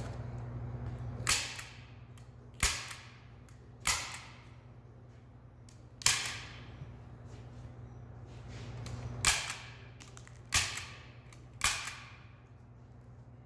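Manual staple gun firing seven times at uneven gaps, each a sharp snap with a short tail, over a low steady hum.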